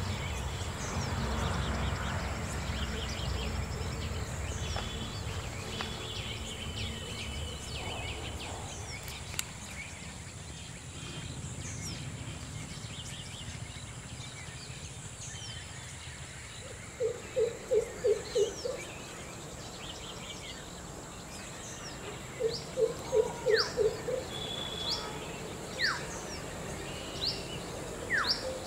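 Birds calling in woodland: one bird gives a quick run of about five low hoots, twice in the second half, among repeated short, sharp high chirps that sweep downward, over a steady high insect whine.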